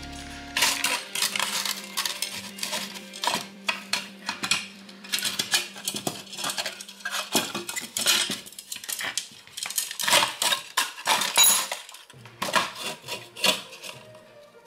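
Sheet-aluminium case and screws of a switching power supply clinking and rattling as it is handled and the circuit board is pulled out, with many short metal clanks in quick succession.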